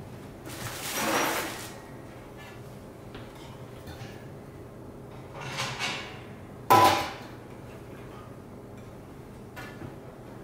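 Stainless steel parts of an electric brewing kettle being handled: rustling and scraping about a second in and again around five and a half seconds, then a sharp metallic clank with a brief ring near seven seconds, over a faint steady hum.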